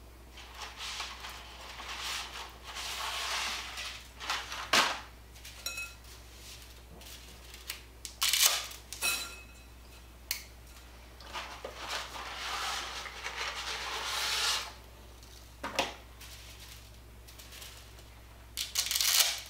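Dry spaghetti being snapped in half by hand, a bundle at a time, with several sharp cracks spread through and stretches of rustling and clatter as the strands are handled and the broken pieces drop into a glass bowl.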